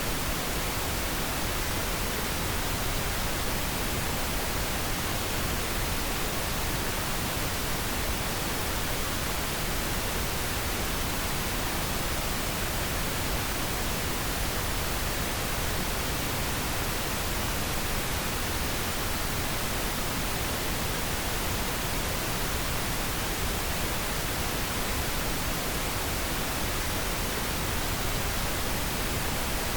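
Steady pink noise: an even, unchanging hiss across the whole range, with no breaks or events.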